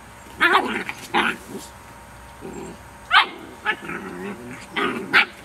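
Rhodesian Ridgeback puppies giving a string of short, sharp barks in play.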